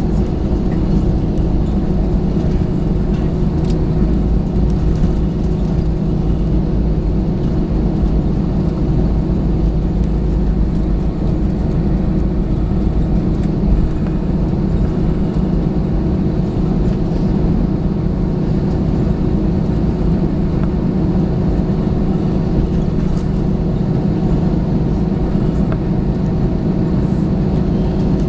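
Airbus A321 cabin noise heard from a window seat: the engines running in a steady, unchanging drone over a low rumble, with a steady low hum.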